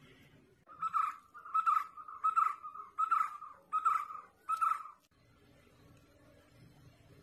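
An animal calling six times in a quick, even series, about one and a half calls a second. Each call lasts about half a second.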